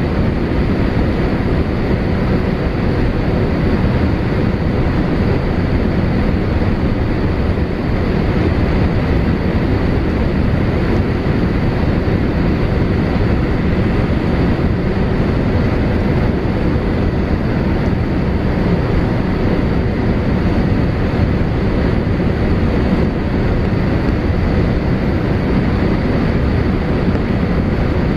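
Steady cabin noise of a Boeing 787-8 on low final approach, heard from a window seat: the Rolls-Royce Trent 1000 engines and the rush of air over the fuselage make an even, unchanging roar, with a few faint steady whine tones.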